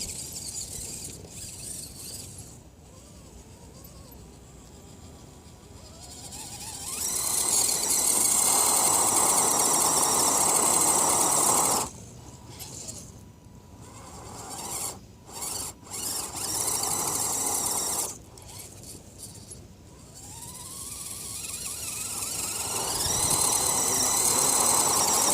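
Axial SCX10 Deadbolt RC crawler's electric motor and drivetrain whining under throttle. It runs in several stretches: a long run that cuts off abruptly, then a few short stabs, then a whine that climbs in pitch near the end.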